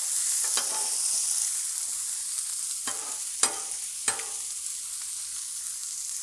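Pierogies sizzling on a hot Blackstone flat-top griddle as they are flipped. Metal spatulas scrape and clack against the steel cooking surface about four times.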